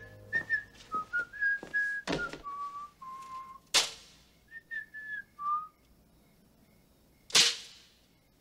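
A person whistling a slow tune in short held notes, which stops a little past halfway. Three sharp knocks come about two, four and seven and a half seconds in; the last two are the loudest sounds.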